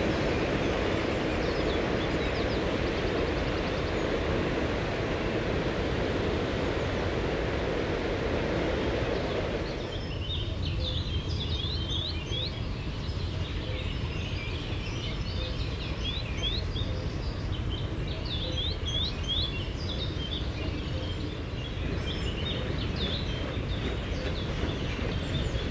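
A steady roaring noise for about ten seconds stops abruptly. Small birds then chirp over and over in short, falling notes above a low rumble.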